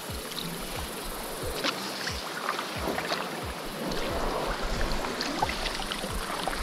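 Water lapping and splashing around a small fishing boat on a river, with scattered small clicks and a run of soft low knocks against the hull.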